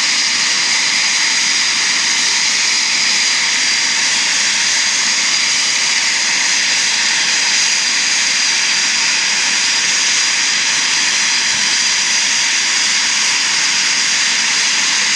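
Eurofighter Typhoon jets' engines running at ground idle: a steady, loud rush of jet noise with a constant high-pitched whine over it.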